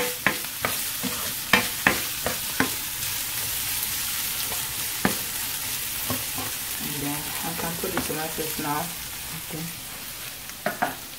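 Diced carrots, peas and red onion sizzling on high heat in a nonstick frying pan as a plastic spoon stirs them. The spoon knocks and scrapes against the pan several times in the first few seconds and once more about five seconds in.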